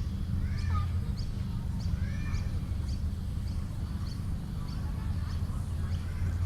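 Birds calling at the lake's edge: short high chirps repeating about twice a second, with a few longer, lower calls, over a steady low rumble.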